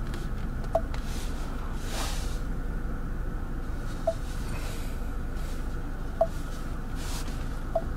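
Four short beeps a few seconds apart from the Ford SYNC infotainment touchscreen, each sounding as the screen is tapped. A steady low cabin hum runs underneath.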